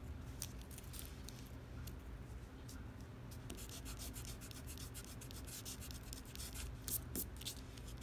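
Pencil scratching on paper in short sketching strokes, a few at first, then many quick strokes in a row from about halfway through.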